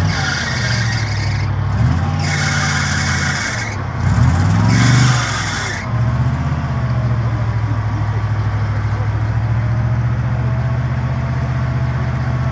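Engines of a recovery pickup and a stuck Chevrolet Suburban working under load as the Suburban is dragged out of a ditch on a tow strap. Over the first six seconds the engine note rises and falls, with three bursts of a rushing hiss, then it settles to a steady run.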